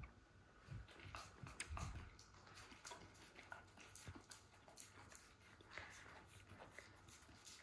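Faint, irregular small clicks as a Vizsla mouths and nibbles gently at a piece of fruit held in a person's fingers.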